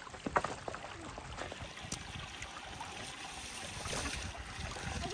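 Shallow stream trickling over stones, with a couple of light knocks.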